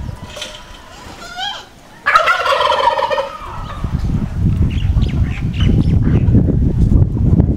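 A turkey gobbles once, about two seconds in, a loud warbling call lasting about a second, with a few quick high notes just before it. After the gobble, wind rumbles on the microphone.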